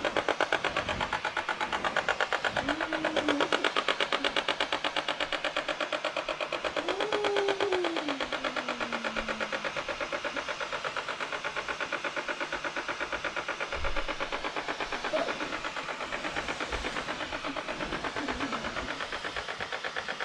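SilverCrest steam mop running on its maximum setting over carpet: a rapid, even pulsing of its water pump with a steady hiss of steam.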